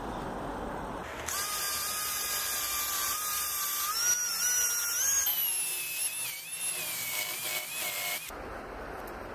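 Cordless drill whining as a twist bit bores into the wooden side of the sled. The whine starts about a second in, its pitch stepping up and wavering, changes partway through and stops abruptly near the end.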